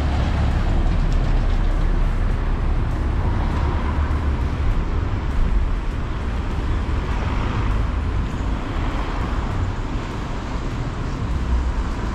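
Road traffic running past close by, cars and a lorry, as a steady low rumble.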